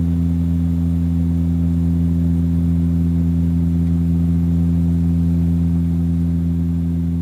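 Saab 340B's twin GE CT7-9B turboprops and four-blade propellers droning in cruise, heard from inside the cabin beside the propeller: a loud, steady low hum with several even tones stacked above it.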